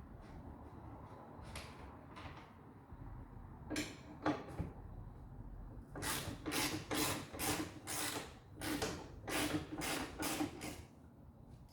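Socket ratchet wrench being worked back and forth on the Jeep's 13 mm hood bolts: a few clicks, then a run of about ten short ratcheting strokes at roughly two a second.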